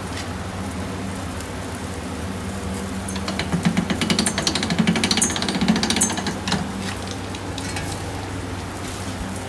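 Glowing charcoal briquettes in a Weber kettle crackling and sizzling, with a busy run of quick crackles and pops in the middle, over a steady low hum.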